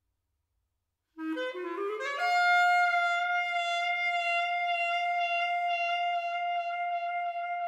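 Solo clarinet, silent at first, then about a second in a quick rising run of notes that lands on a long held high note, sustained with a slight vibrato.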